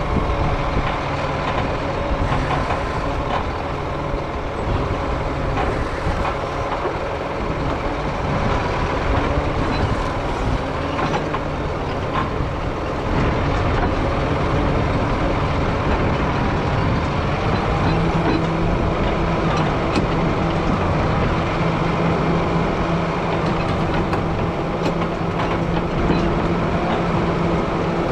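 John Deere 670G motor grader's diesel engine running steadily while grading a dirt road. It gets louder about halfway through and settles into a steadier hum for the last ten seconds.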